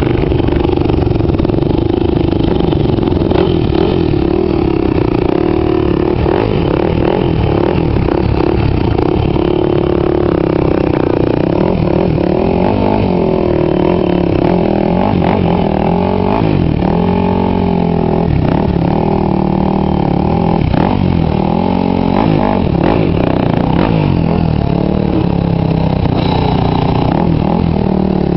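A pack of off-road dirt bikes running together, engines idling with a steady drone, then revved up and down again and again for a stretch in the middle.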